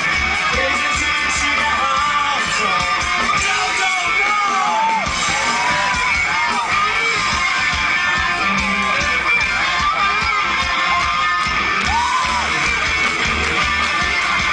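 Live band music led by strummed guitar, with a voice singing over it.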